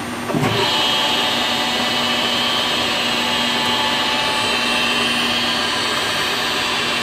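Citizen B12VI CNC Swiss-type lathe running: brief clunking about half a second in, then a louder steady high-pitched whirring hiss over a low machine hum.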